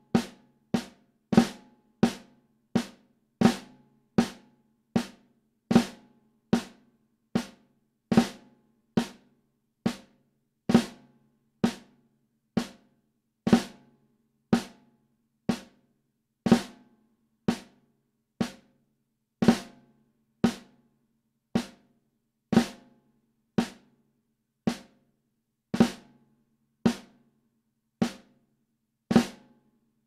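Snare drum struck with wooden sticks in matched grip, playing the Swiss Army Triplet rudiment as a steady pulse of crisp, briefly ringing hits. The pulse gradually slows from about one and a half hits a second to about one a second, and the playing stops just before the end.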